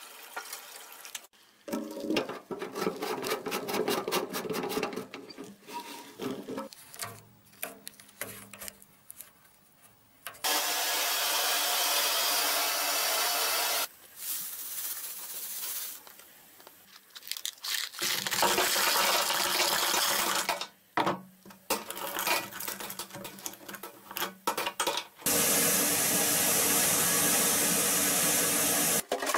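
Fuel tank being flushed out: several stretches of steady rushing water, in between spells of rattling and scraping as gravel, mud and rust flakes inside the metal tank are shaken loose.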